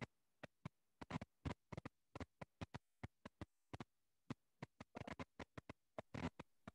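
Near silence, broken by faint, irregular clicks, several a second.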